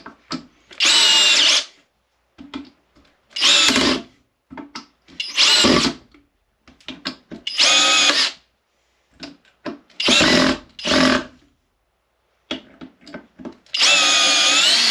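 Cordless drill driver on speed 1 driving screws into wood in about seven short runs, each a second or less, a couple of seconds apart, with small clicks and knocks between them.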